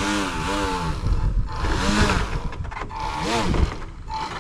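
Aquacraft Mini Gator Tours RC airboat's electric motor and air propeller revving in three throttle bursts, the pitch rising and falling with each, over a steady high whine.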